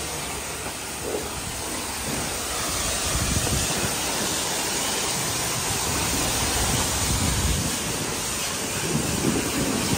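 Self-serve car wash pressure wand spraying water: a steady hiss that grows a little louder about three seconds in.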